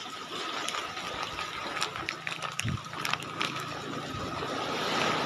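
Rough storm surf and wind rushing steadily, swelling louder near the end, with scattered sharp clicks and a thin steady tone underneath.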